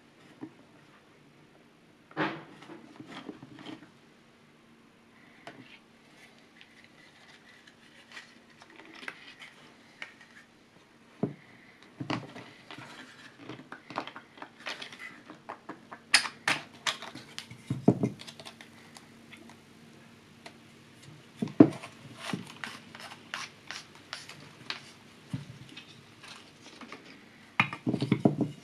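Hands handling a 3D-printed plastic film holder: irregular clicks, taps and knocks of the plastic parts as it is turned, advanced and taken apart. The clicks are sparse at first and busier in the second half, over a faint steady hum.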